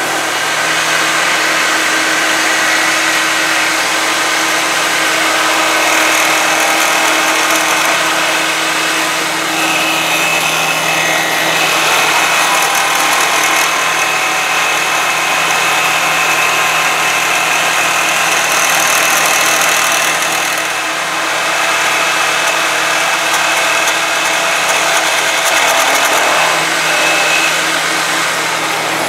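Wood lathe running while a carbide-insert cutter roughs a square wooden blank down to round. A steady motor hum sits under the continuous noise of the cut.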